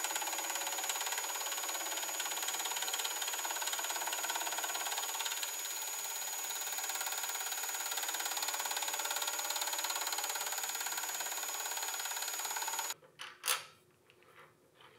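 Rockwell milling machine spindle running a fly cutter with a steady mechanical run and a thin high whine, facing a metal block; it cuts off abruptly near the end. A single sharp metal click follows as a hex-key screw is set in the vise jaw.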